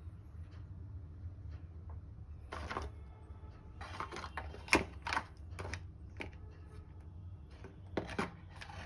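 Small plastic camera parts, cables and a cardboard box being handled and packed: a series of sharp clicks and rustles, loudest about halfway through and again near the end, over a steady low hum.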